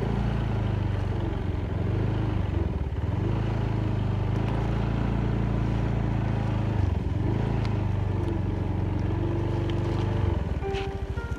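A vehicle engine running at a steady speed, dipping briefly twice, about three and seven seconds in, and falling away near the end.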